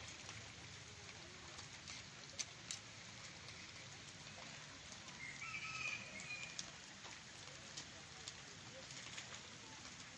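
Light rain falling on a pond, an even hiss with scattered small drop ticks. A short bird call about halfway through.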